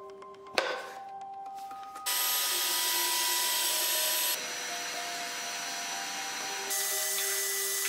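A vacuum cleaner hose sucking up dust and debris from the floor of a wooden cabinet, switching on about two seconds in with a steady rushing noise that drops in level partway through and rises again near the end. Before it starts there is a single sharp wooden knock.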